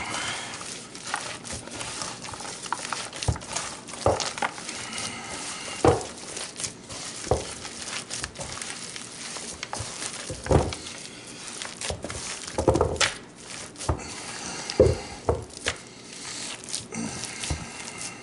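Rubber-gloved hands squeezing and kneading a raw ground beef and sausage mix with breadcrumbs and eggs in a plastic bowl: continuous wet squishing and squelching, with several louder thumps as the hands press into the bowl.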